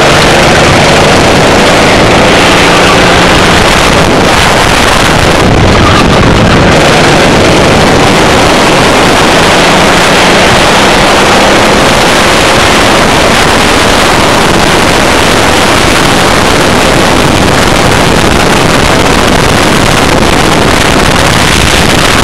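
Racing kart engine running hard at race speed, recorded onboard at a loud, constant level with wind buffeting the microphone.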